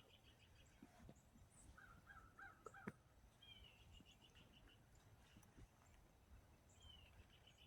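Faint wild birdsong: a call of one slurred note followed by a quick run of short notes, heard three times, with a lower run of notes about two seconds in.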